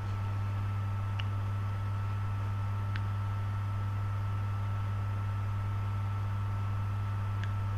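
Steady low electrical hum with a faint higher whine above it, and three faint ticks spread through it.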